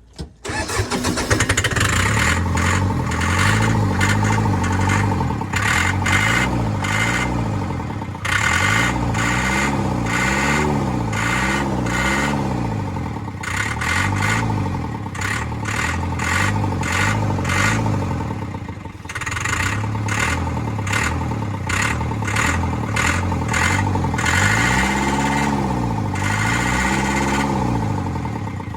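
Large engine running with a heavy clatter, its speed repeatedly rising and falling as it is revved up and down. The sound starts abruptly and breaks off briefly twice.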